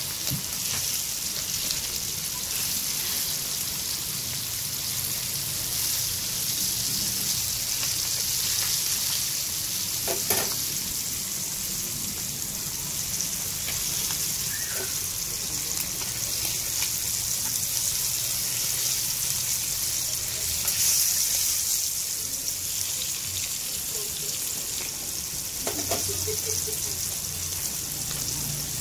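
Chicken skin deep-frying in a wok of hot oil, sizzling steadily, with a brief click about ten seconds in.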